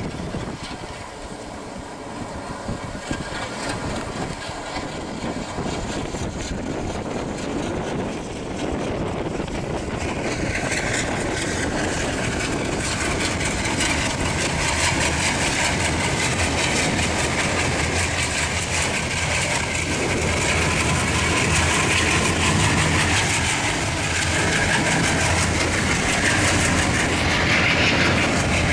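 Twin WDG-3A ALCO diesel locomotives' 16-cylinder engines running as they haul a train slowly past. The sound grows steadily louder as they draw near, with a steady low engine drone over wheel and rail noise in the second half.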